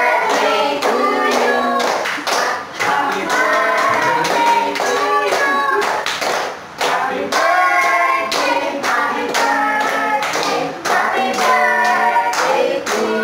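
A small group of voices, adults and a child, singing a birthday song together, with hands clapping along throughout.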